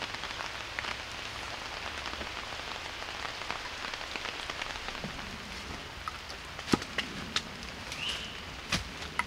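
Steady rain pattering on surfaces, an even hiss with scattered drips, broken by a few sharp clicks, the loudest about two-thirds of the way through and again near the end.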